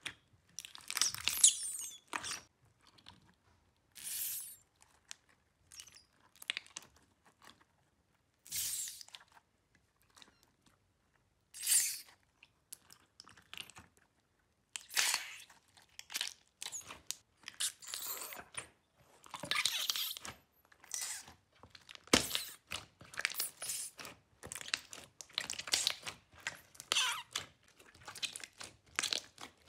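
Hands squeezing and pulling apart purple slime packed with soft cubes. It makes irregular wet squelching and crackling bursts, each a second or so long, with short quiet gaps between.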